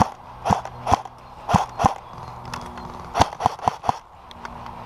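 Footsteps crunching on rough ground, a short sharp step about every half second.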